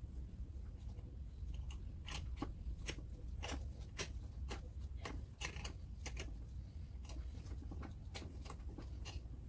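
Ratchet clicking in short, irregular strokes as a gear puller's centre screw is wound down against a seized gearbox output shaft cup, over a steady low hum.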